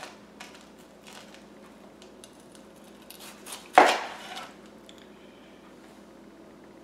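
Kitchen knife cutting through a deep-fried, breadcrumb-coated avocado half on a plastic cutting board: light scraping and small clicks, then one loud knock about four seconds in as the blade goes through to the board.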